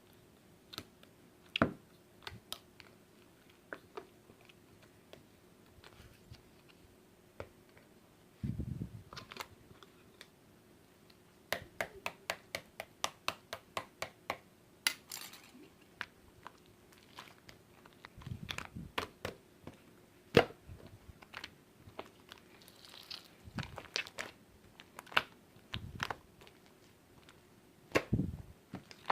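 Irregular sharp clicks and taps with some crinkling, coming in clusters, and a few short low thumps.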